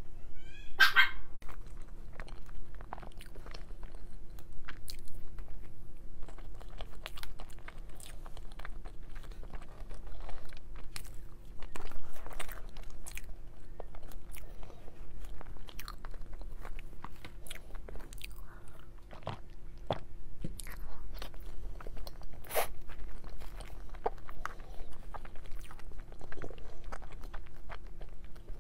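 Close-miked eating of soft dessert cakes: biting and chewing with many short mouth clicks, over a faint steady hum. About a second in, a brief high dog whine.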